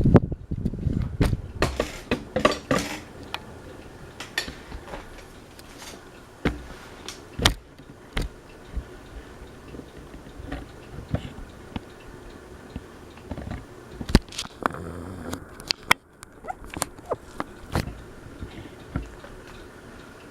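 Encon ceiling fan running with a faint steady hum, under many irregular clicks and knocks.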